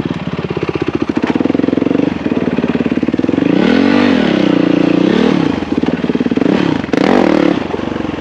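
Dirt bike engine running, revving up about three and a half seconds in and easing back down a second or so later, with another short rev near the end.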